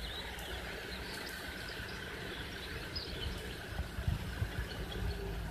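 Outdoor background: faint, scattered bird chirps over a steady low rumble and a faint even hum.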